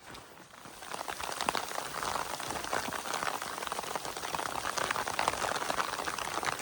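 Rain pattering: a dense, steady run of small drops that gets louder about a second in.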